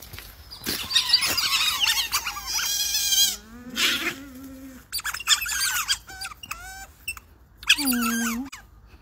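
Otters squeaking and chirping in several rounds of high-pitched calls that bend up and down, a few with lower, wavering tones mixed in.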